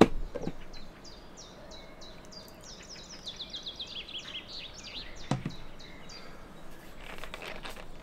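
Sharp plastic snap of the Baro Cook's clip-lock lid being unlatched, with a second softer click just after. Then a small songbird sings a run of quick high notes that fall in pitch and speed up. A single knock comes about five seconds in.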